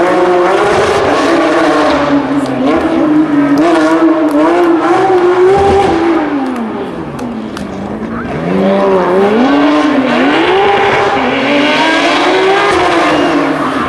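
Porsche 911 GT3 Cup rally car's flat-six engine running at high revs under hard driving, its pitch wavering up and down with gear changes. About seven seconds in the revs fall away and it goes quieter, then climbs sharply again and holds high to the end.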